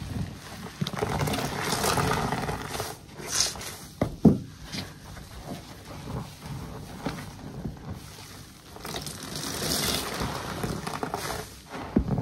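Body sponges squeezed and kneaded by hand in a basin of soapy water: wet squelching and sloshing that swells and eases with each squeeze, with a sharper squish about four seconds in and another near the end.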